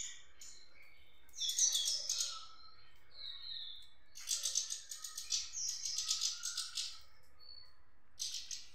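European goldfinch of the parva race singing: bursts of fast, high twittering song with a few clear whistled notes between them, the longest phrase running from about four to seven seconds in.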